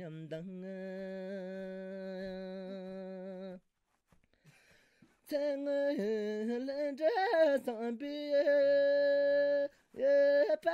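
An unaccompanied voice singing long held notes: a steady low note with a slight waver, a pause of about a second and a half, then higher held notes that glide up and down.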